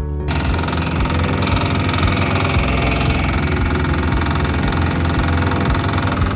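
An engine running steadily at a constant speed, coming in abruptly just after the start.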